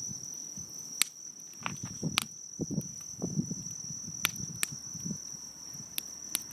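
Driftwood campfire crackling, with about six sharp pops and a soft irregular low rushing of the flames. Insects keep up a steady high-pitched trill throughout.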